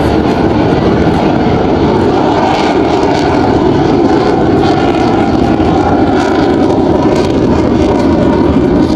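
Sukhoi Su-30MKI fighter jet's twin turbofan engines heard as a loud, steady rush of jet noise during a fast display pass.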